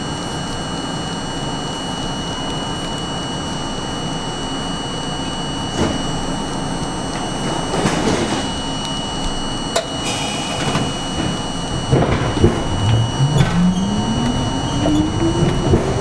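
R42 subway car standing at an elevated station with a steady hum and a thin high tone, sharp knocks from its doors closing between about six and ten seconds in, then the traction motors whining up in pitch as the train starts to pull out, from about twelve seconds in.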